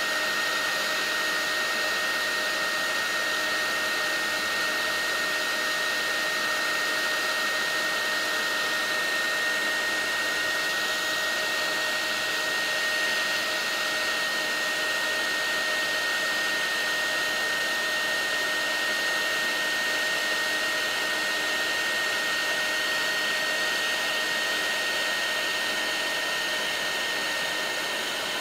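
Heat gun running steadily to reflow solder on a circuit board: a noisy hiss of blown air with a steady high whine from its fan.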